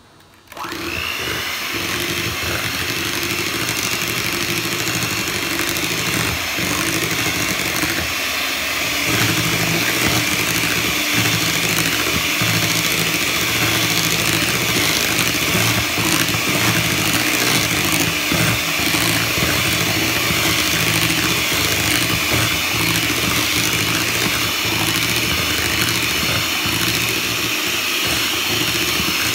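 Electric hand mixer switched on about half a second in and running steadily, its twin beaters churning through mashed sweet potato pie filling. It gets a little louder about nine seconds in.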